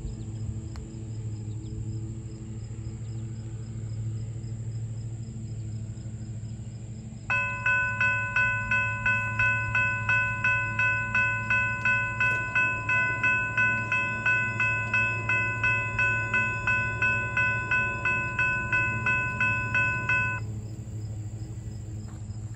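General Signals Type 3 electronic crossing bell ringing steadily at about three strokes a second. It starts about seven seconds in and stops about twenty seconds in, once the crossing gates are down. Insects keep up a steady high buzz throughout.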